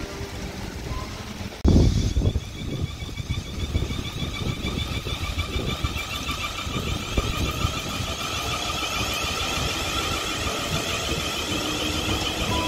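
South Western Railway Class 450 Desiro electric multiple unit running past along the platform. Its traction equipment gives a whine of several steady high tones with a slight waver, over a low rumble of wheels on rail. The sound jumps up abruptly about two seconds in.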